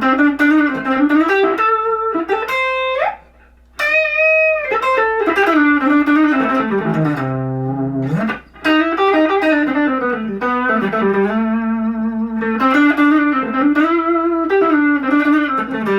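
Guild Aristocrat HH electric guitar played on its neck pickup through an old Line 6 amp with a little gain: a single-note line with slides, bends and vibrato, with a short break about three seconds in. The guitar's tone knob is rolled all the way down, darkening the sound, and there is a faint steady hum underneath.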